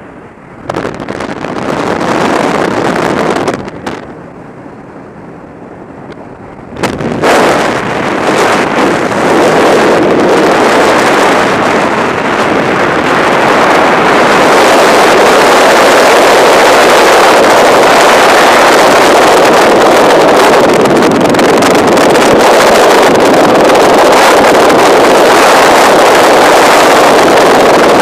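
Wind blasting over a helmet-mounted camera's microphone: gusts at the open aircraft door, then from about seven seconds in the freefall airstream, building to a loud, steady rush.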